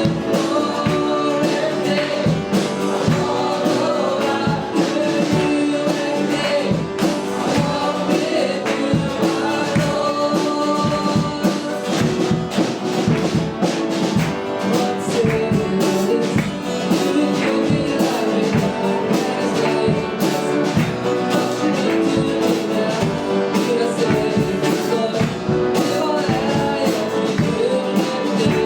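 Worship band playing a song with voices singing along and a steady beat.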